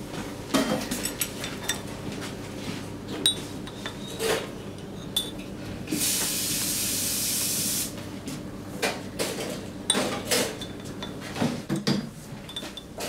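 Café crockery sounds: scattered clinks of cups, saucers and a spoon, with a steady hiss lasting nearly two seconds about six seconds in.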